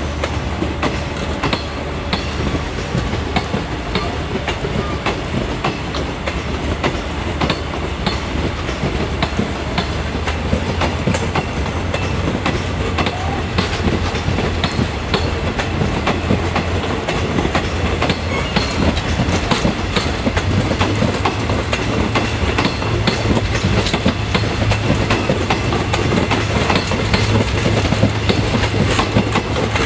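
Eastern & Oriental Express passenger carriages rolling past, their wheels clicking over the rail joints over a steady rumble, growing a little louder toward the end.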